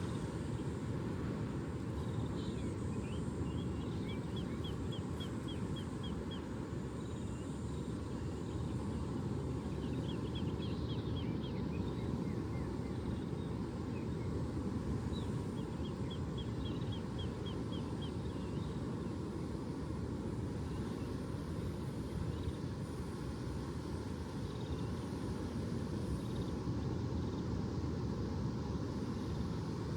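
Steady low rumbling outdoor background noise, with a small bird's quick trill of high chirps heard three times, about 3, 10 and 15 seconds in.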